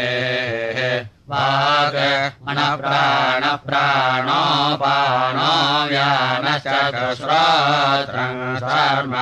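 Samaveda gana chanting in the Kauthuma style: a sung Vedic chant with long held notes whose pitch wavers up and down, with a short break about a second in.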